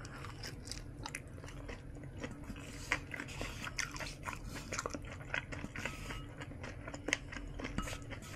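Close-miked chewing of a boiled dumpling: irregular wet mouth clicks and smacks, with a sharper click about 3 s in and another about 7 s in.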